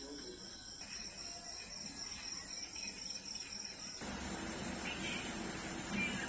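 Crickets chirping in a steady, pulsing high trill. About four seconds in, a louder steady hiss with a low hum takes over.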